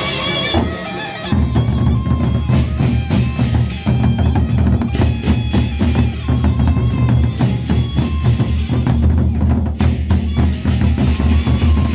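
A gendang belek ensemble of large double-headed Sasak barrel drums. A melodic line plays alone for about a second, then the drums come in loud with a fast, dense beat that carries on.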